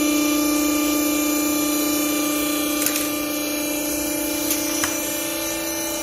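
Vertical hydraulic clothing baler's power unit running with a steady hum, with a couple of light knocks about three and five seconds in.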